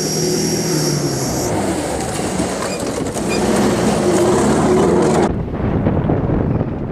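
Engine of a Mitsubishi L200 off-road race truck revving up twice as it churns past through loose dirt, with a thin high whine over it for the first second or so. About five seconds in, the sound changes to wind buffeting the microphone with the engine farther off.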